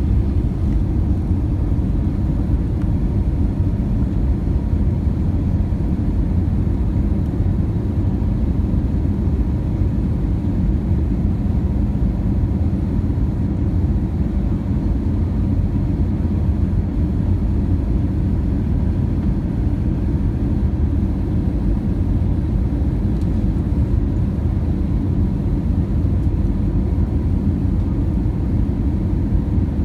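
Steady cabin noise of an Airbus A320 on final approach, heard from a window seat over the wing: a low rumble of the engines and airflow, with faint steady tones above it.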